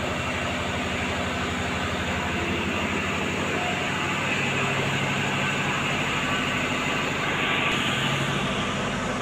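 Steady rumbling noise with a low hum, typical of electric fans running close to the microphone.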